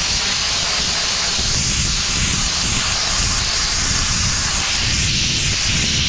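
Abrasive blast nozzle firing grit at the steel tipper body of a dump truck, stripping rust and paint back to bare steel: a loud, steady hiss of compressed air and abrasive with a low rumble underneath.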